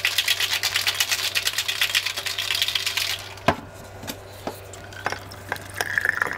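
Metal cocktail shaker being shaken hard, ice rattling inside in a fast, dense rhythm, stopping abruptly about three seconds in. A few sharp clicks and knocks follow.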